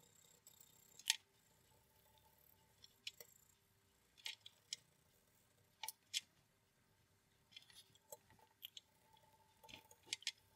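Near silence with faint, scattered clicks and light scrapes as a cotton-wool-tipped chopstick is rubbed over a valve radio's metal chassis to clean it, over a faint steady hum.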